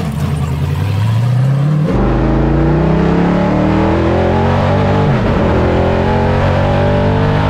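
Pickup truck engine accelerating, rising steadily in pitch. About two seconds in it cuts to a louder run that keeps climbing, with a brief dip in pitch about five seconds in.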